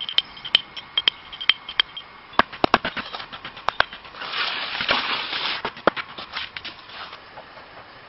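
Hand work with wood and stone in forest leaf litter: sharp clicks and knocks at an uneven pace, with a burst of rustling leaves and branches a little past halfway.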